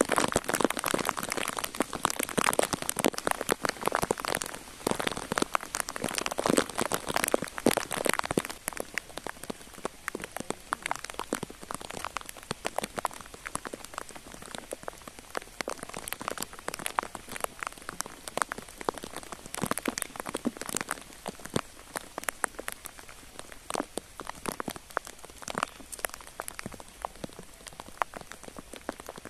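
Light rain pattering steadily, heavier for the first several seconds and then settling to a softer, even patter.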